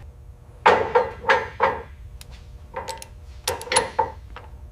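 Hand tools clanking and tapping on a steel rear axle and leaf-spring assembly. Two clusters of sharp metallic strikes, each ringing briefly.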